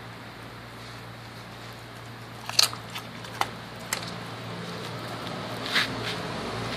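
German Shepherd chewing a raw chicken drumstick, with a few sharp crunches spread from about two and a half seconds in, over a steady low hum.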